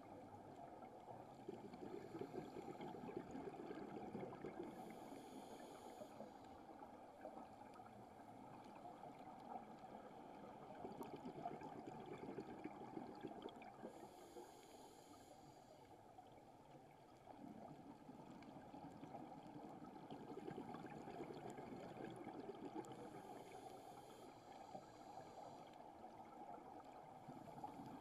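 Faint underwater ambience picked up by a camera in a waterproof housing: a steady, muffled crackling hiss, with a brief higher hiss about every nine seconds.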